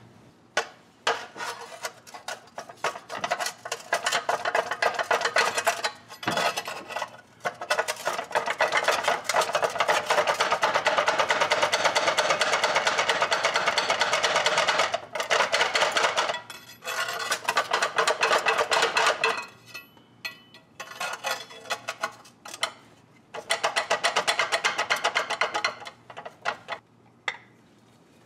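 Rapid metallic tapping and clanking of a hammer and a pry bar against a Willys MB flywheel as it is worked loose, in dense runs of strikes with short breaks between them.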